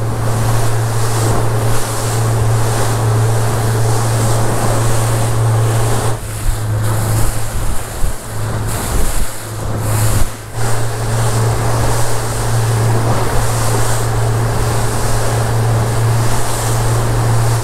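Boat under way at trolling speed: a steady low engine drone under the rush and splash of water off the hull and wake, with wind buffeting the microphone.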